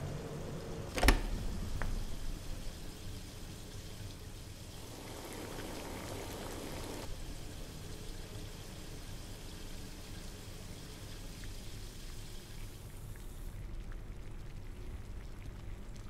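A wooden door knocking shut about a second in, with a small latch click just after, over a steady low room hum. A short rushing hiss follows a few seconds later.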